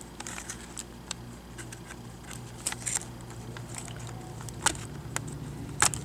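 Small clicks and scrapes of fingertips and fingernails working a laptop speaker cable connector loose on the motherboard: a dozen or so scattered ticks, the loudest near the end, over a steady low hum.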